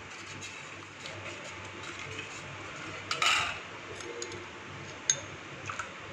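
Steel spoon and ladle clinking and scraping lightly against a stainless steel bowl and a small glass bowl as vinegar-water is spooned into hot milk and stirred, with a brief louder clatter about three seconds in.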